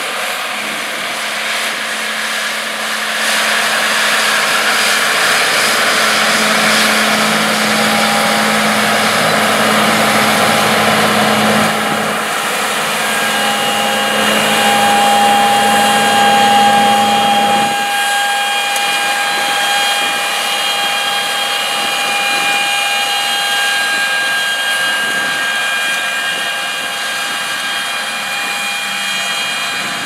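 John Deere 8650 four-wheel-drive tractor's 10.1-litre diesel engine running steadily under load as it pulls a no-till drill, with a steady whine over the engine note. The sound changes abruptly about 18 seconds in.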